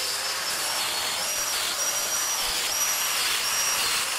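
Festool Domino joiner running and plunging its cutter into the end of an ash table leg to cut mortises. Its high motor whine dips in pitch several times as the cutter bites and then recovers. A dust extractor runs steadily underneath.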